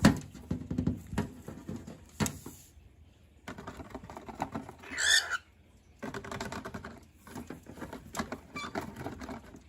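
Cockatiels' claws and beaks tapping and scratching on the microwave and a box, an irregular patter with a few sharper knocks. A short, wavering cockatiel call comes about five seconds in.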